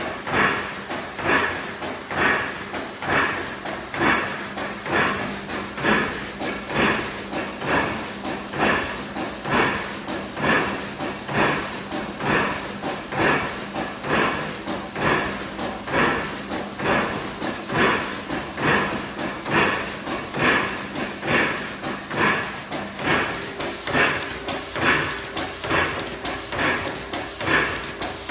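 IMA CD180 filling machine cycling, an even rhythmic clatter of about one and a half strokes a second over a steady low hum.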